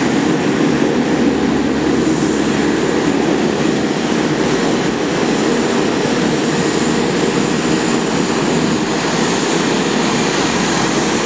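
Twin-turboprop commuter airliner's engines and propellers running with a loud, steady drone as the plane taxis past.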